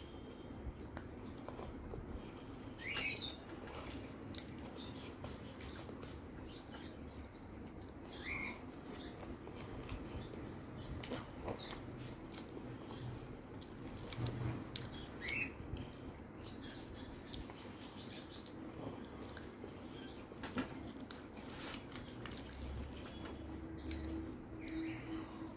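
Close-up eating sounds: chewing luchi (puffed fried bread) and aloo dum, with many small mouth clicks and crackles as pieces of the bread are torn by hand.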